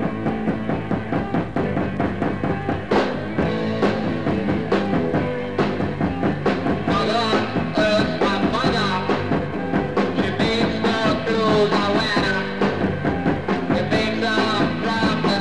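Rock music with a steady drum beat, the soundtrack of an intro.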